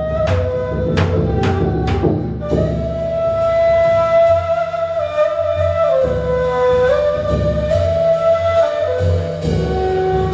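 Ney flute playing a slow melody of long held notes that step up and down in pitch, over a drum struck with mallets. Sharp drum strikes come about twice a second in the first two seconds, then give way to softer, low drum beats under the sustained flute.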